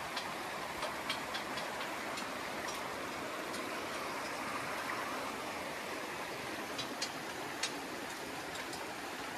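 Small rocky creek rushing over stones in a riffle, a steady even rush of water, with a few light clicks scattered through it.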